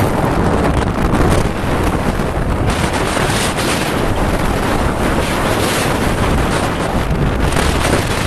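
Wind rushing over the microphone of a phone carried on a moving motorcycle: a steady, loud rush of wind noise.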